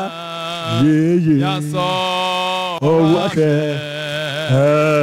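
A man chanting a slow worship song through a microphone, in long held notes that bend and slide between pitches, with short pauses between phrases.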